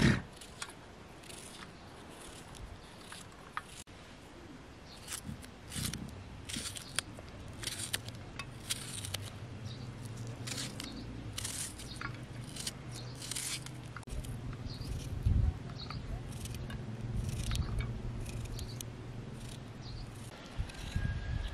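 Small knife cutting through a raw onion held in the hand, a crisp cut about once or twice a second at an uneven pace. A low steady hum runs underneath through most of it.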